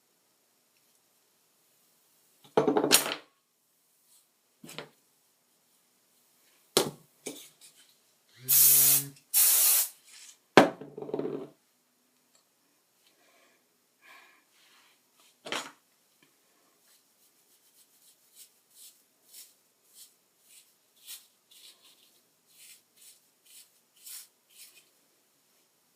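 Aerosol hairspray sprayed in two short hisses about nine seconds in, among scattered handling knocks and clatter. Later comes a run of light, quick strokes, about two a second: a teasing comb worked through the hair.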